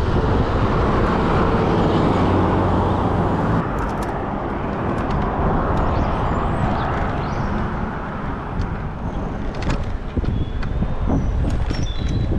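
Wind rushing over the microphone while riding through street traffic, with a motor vehicle's engine running close by for the first few seconds.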